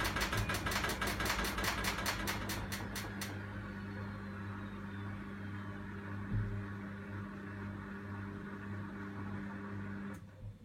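A machine running with a steady hum and rapid, regular ticking. The ticking stops about three seconds in, the hum goes on, and then it cuts off suddenly near the end.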